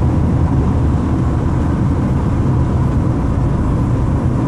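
Steady low road and engine noise of a car driving along, heard from inside the car.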